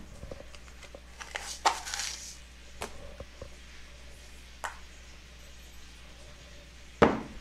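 Kitchen handling noises while brown sugar is measured into a cup: a brief scraping rustle about a second in, a few light clicks, and a sharp knock near the end.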